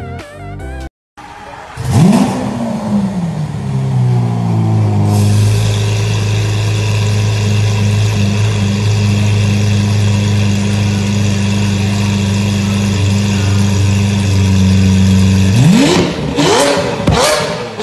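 Lamborghini Aventador's V12 firing up with a sharp flare of revs that falls back to a steady idle. Near the end the throttle is blipped several times in quick succession, each rev rising and dropping sharply.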